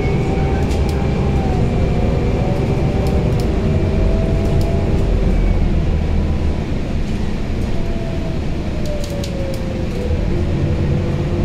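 Inside a Scania Citywide 12LF CNG city bus under way: its 9.3-litre five-cylinder Scania OC09 gas engine and drivetrain run with a steady low rumble, and a faint whine glides up and down in pitch as the bus speeds up and slows. There are a few light rattling clicks from the interior fittings.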